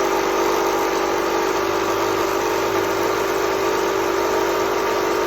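Wagner Control Pro 130 airless paint sprayer's electric pump running steadily with a constant hum, flushing clear water through the machine to clean out the stain.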